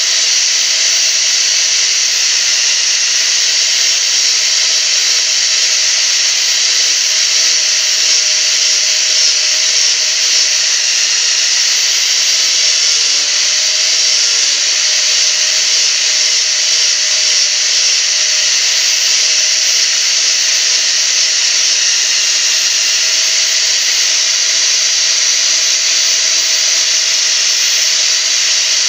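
Corded electric angle grinder running steadily, its abrasive disc grinding and shaping a small piece of wood, with a faint tone under the noise that wavers a little as the disc bears on the wood.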